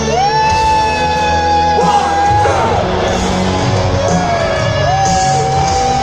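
Live rock band heard from a stadium's stands: an electric lead guitar plays a slow melody of long held notes, sliding up into the first and bending between them, over a sustained band backing, with the crowd yelling.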